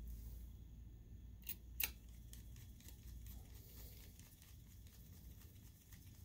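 Small screwdriver turning a screw into the metal light-tunnel bracket of a DLP projector's optic block: two sharp clicks about a second and a half in, then a quick run of faint ticks as the screw is driven.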